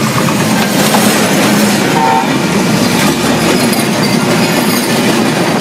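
Railway wagons' steel wheels rolling over the rail close by, a continuous loud rumble and clatter. A short two-note tone sounds about two seconds in.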